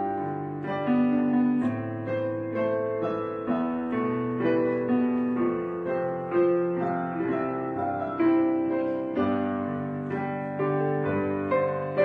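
Background piano music: a gentle melody of struck notes, each ringing and fading, about one or two a second.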